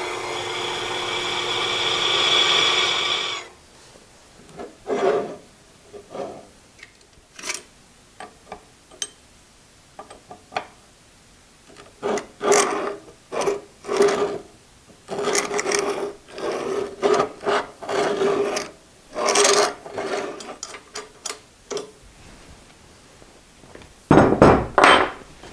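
Drill press running, boring a hole in a quarter-inch steel plate, stopping about three and a half seconds in. Then a series of short metal scrapes and rubs as the steel plate is slid and shifted on the bandsaw's cast-iron base, with a heavier thump near the end.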